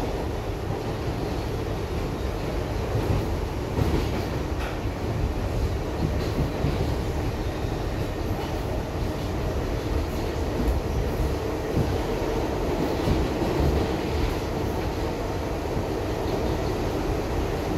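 Ride noise inside an R62A subway car running at speed: a steady rumble of steel wheels on the rails, with a few light clicks scattered through it.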